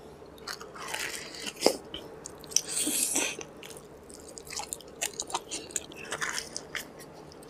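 Close-miked eating: a man biting into and chewing deep-fried puri, with scattered sharp crunches and crackles, the loudest snaps about one and a half and two and a half seconds in.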